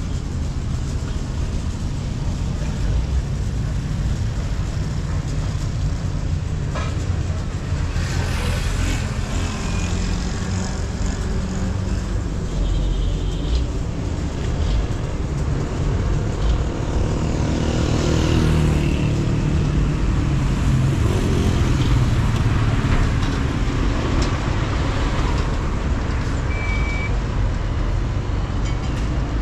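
Outdoor road-traffic noise: a steady low rumble of motor vehicles, with vehicles passing twice and a short high beep near the end.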